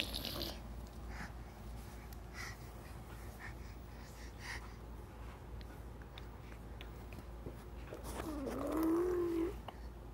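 Faint small clicks and rustles, then about eight seconds in one drawn-out vocal sound, low and pitched, that dips and then rises over about a second and a half.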